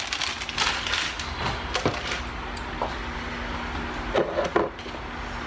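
Rustling handling noise with scattered light clicks and a few sharper knocks, the clearest about two seconds in and twice past four seconds.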